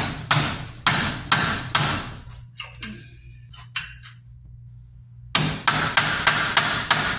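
Hammer blows on metal, knocking at a torch-heated, rusted bolt stuck in a catalytic converter exhaust pipe flange. About five sharp ringing strikes in the first two seconds, a pause, then a quick run of blows about four a second from near the end.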